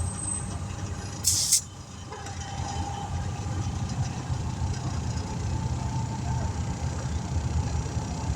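A vehicle engine running steadily, with a short sharp hiss of air about a second in, then a faint steady whine.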